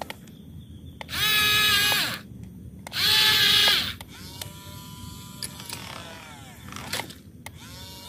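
Small electric gear motors of a Yigong RC toy excavator whining as it moves: two loud steady whines about a second each between about one and four seconds in, then a quieter whine while the upper body turns, ending with a click.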